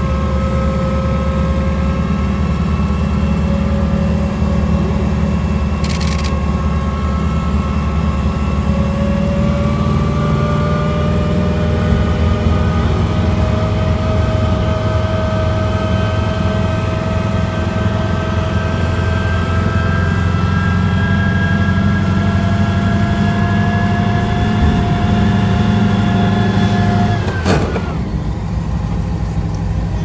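Air-cooled flat-four engine of a VW38 Beetle prototype running steadily under way, heard from inside the car. Its pitch climbs slowly as the car gathers speed, then drops abruptly near the end.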